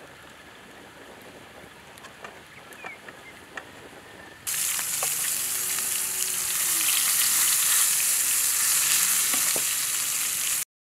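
Beef steak sizzling in hot fat in an iron pan over wood embers, a loud, steady hiss that starts suddenly about halfway through and cuts off abruptly near the end. Before it, a quieter background with a few faint clicks.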